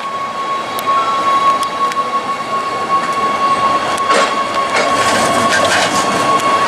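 Zurich tram running on its rails, with a steady high-pitched whine and scattered clicks of the wheels over the track. It grows louder over the first second, then holds.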